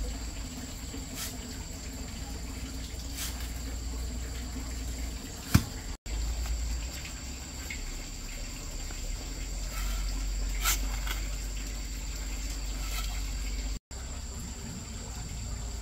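A shovel turns a dry mix of sand and cement in a metal wheelbarrow, making a gritty scraping and sliding sound with a few sharp clanks of the blade on the tray. The loudest clank comes a little over five seconds in. A steady high insect drone runs underneath.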